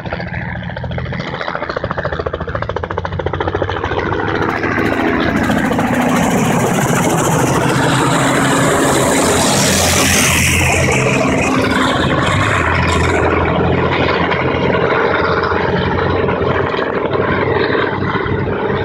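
BMP-1 (BVP) infantry fighting vehicle's diesel engine running as it drives, mixed with a low-flying helicopter's rotor. A loud rushing hiss builds in the middle, with a falling whine about ten seconds in.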